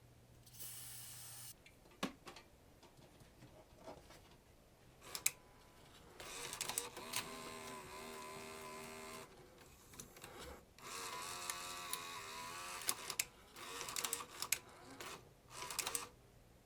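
Sony SL-HF95D Betamax video recorder's tape mechanism running: several bursts of motor whirring with a steady whine, and sharp clicks between them.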